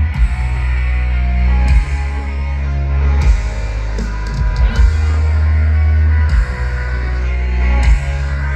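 Loud rock music with heavy bass and electric guitar, its chords changing every one to two seconds.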